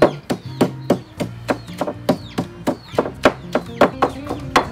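A pestle pounding garlic and chili in a mortar, a steady run of sharp knocks at about three strikes a second.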